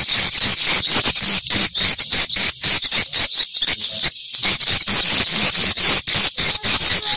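Swiftlets twittering: a dense, continuous run of short high-pitched chirps, several a second, with a brief break about four seconds in.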